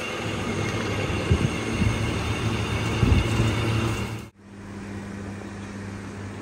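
Engine lathe running, spinning a long steel pipe against the cutting tool: a dense, steady machining noise with a few knocks. About four seconds in it cuts off suddenly, giving way to a quieter, low, steady hum.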